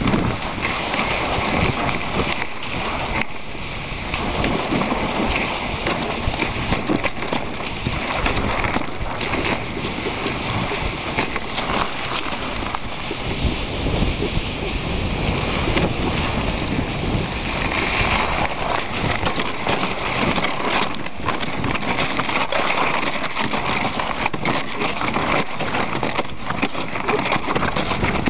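Dog sled moving over river ice: the runners make a steady scraping, crackling noise, thick with small clicks and knocks.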